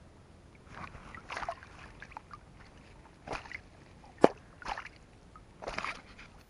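Water sloshing and splashing in short separate bursts, about one every second, with a single sharp click a little past the middle.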